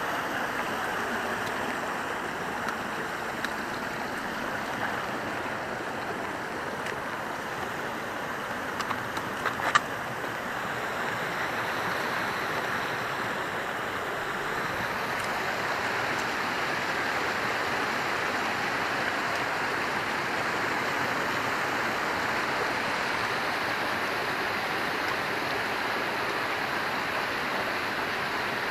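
Mountain stream rushing steadily, with a few short sharp knocks about ten seconds in.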